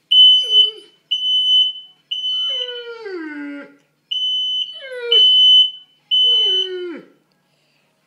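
A fire alarm sounds a high-pitched beep about once a second, each beep about half a second long. Between beeps, a frightened Great Dane–English Mastiff mix whines in three long cries that fall in pitch.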